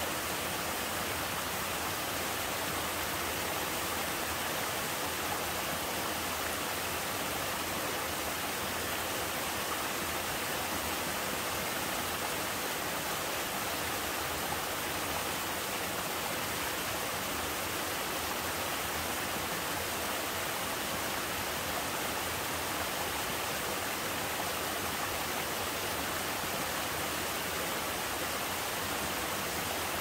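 Small two-tier mountain waterfall pouring over rocks into a stream: a steady, even rush of falling water.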